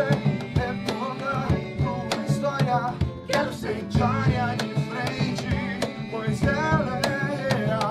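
Live acoustic band music: an acoustic guitar and a cajon keeping a steady beat, with a sung melody over them.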